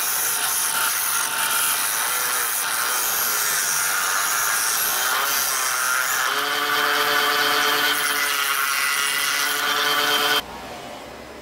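Electric disc sander running, its abrasive disc grinding the end of a piece of wood held against it: a loud, rasping hiss that cuts off suddenly near the end.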